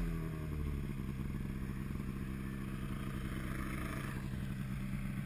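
Snowmobile engine easing off at the start, its pitch falling, then running steadily at a low, even speed.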